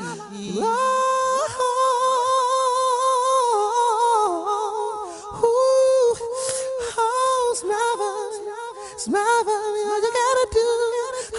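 Wordless high singing, a song's vocal hook: long held notes that bend and slide, with almost no bass underneath.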